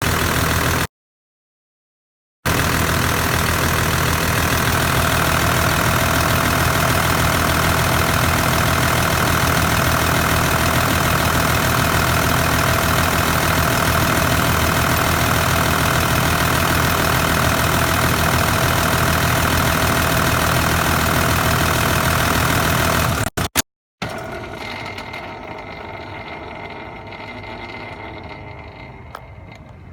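Turbocharged engine running steadily with a rattle from its Kinugawa CT26 turbocharger, which the owner takes for a failing turbo. The sound cuts out completely twice, once near the start and once late on, after which it is much quieter and fades away.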